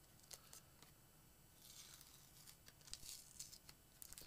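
Faint crinkling and tearing of a small cardboard box and its packaging being pried open by hand, with scattered light ticks and crackles that get busier in the second half.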